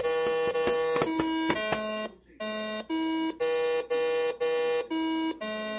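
Simon electronic memory game sounding its coloured-pad tones: steady electronic notes at three or four different pitches, each about half a second long. In the first two seconds the pads click as they are pressed; after a short break about two seconds in, the toy plays back a sequence of eight tones at about two a second.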